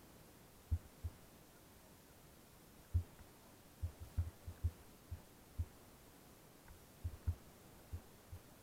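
Muffled dull low thumps, about a dozen at irregular intervals, with several close together near the middle, over a faint steady hum: knocks and bumps picked up through an action camera's mount and housing as the dirt bike rolls slowly over rough ground.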